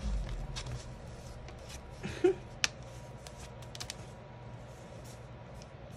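Hands handling a spiral-bound paper planner: soft paper rustles, light taps and small clicks as the page is pressed and smoothed, with a sharper click a little over two seconds in.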